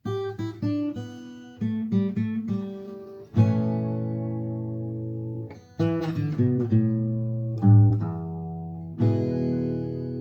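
Acoustic guitar music: picked notes and strummed chords that ring on for a second or two between strokes.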